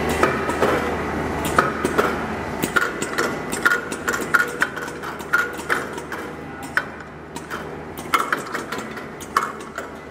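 Chicken-feet weight-sorting machine running: its sorting gates clack open and shut irregularly, sharp metallic clicks that come a few per second at times, over a steady machine hum.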